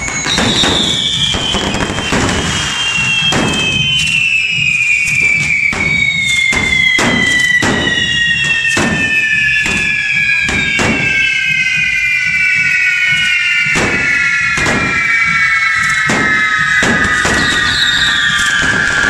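Many devils' carretilles (handheld spark-spraying fireworks) going off at once. Several high whistles slide slowly down in pitch, while sharp bangs go off irregularly, one or two a second.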